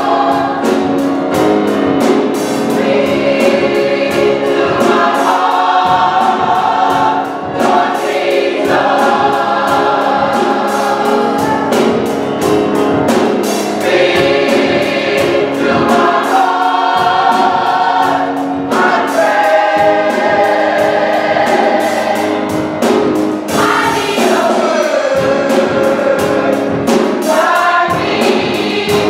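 Gospel choir singing, many voices together in sustained phrases, over a steady beat of about two strokes a second.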